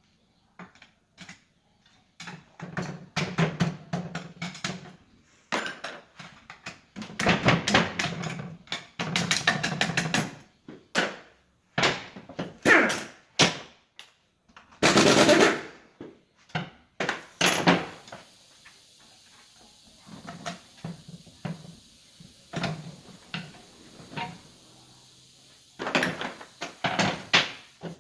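Metal gearbox parts and hand tools clanking, knocking and clattering as a Ford Fiesta manual gearbox is dismantled on the bench. The knocks come in quick irregular runs, with one louder rushing burst of about a second halfway through.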